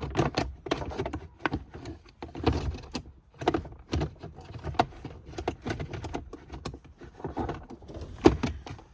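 Car's shift-boot trim being handled and worked back in around the shifter: irregular plastic clicks, knocks and rustling, with the loudest knock near the end.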